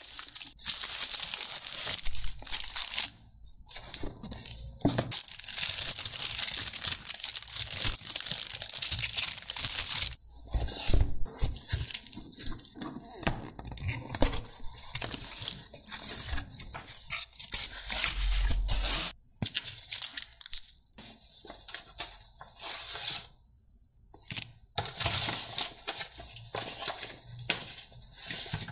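Paper and plastic food packaging crinkling and tearing as it is handled. It runs unbroken for about the first ten seconds, then comes in short bursts.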